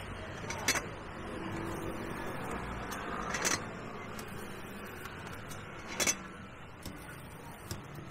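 Three sharp knocks about two and a half to three seconds apart, over steady background noise.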